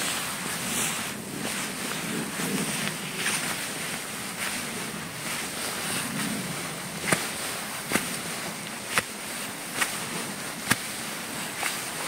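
Footsteps through dry fallen autumn leaves over a steady rustling noise. From about seven seconds in come sharp crunches at a walking pace, about one a second.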